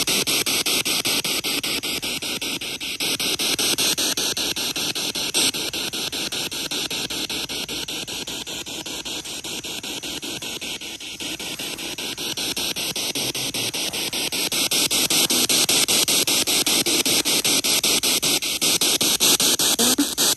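Spirit box sweeping through radio stations: a loud, steady hiss of static chopped into rapid fine pulses. Near the end a brief fragment comes through that is captioned as the word "Once?"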